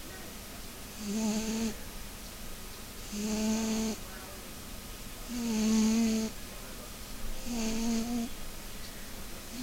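Maine Coon cat snoring: four snores about two seconds apart, each under a second long, with a steady pitched tone and a breathy hiss.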